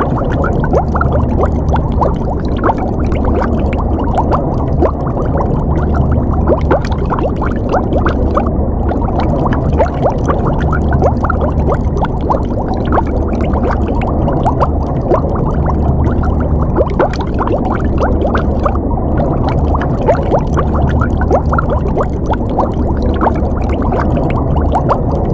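Underwater ambience: continuous bubbling and gurgling water over a low, steady rumble, muffled, with most of the sound in the low and middle range.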